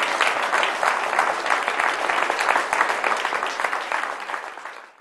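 Audience applauding, many hands clapping at once; the applause dies away over the last second.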